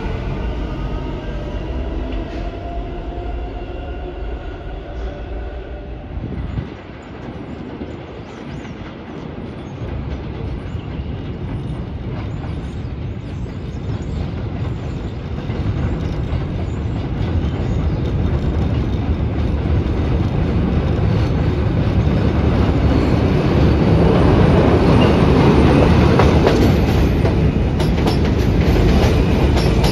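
R160 subway train on an elevated line. In the first few seconds its electric traction motors whine, rising in pitch. Then comes the steady rumble of the train running, which grows loudest near the end as it passes close, with rapid clacking of the wheels over the rails.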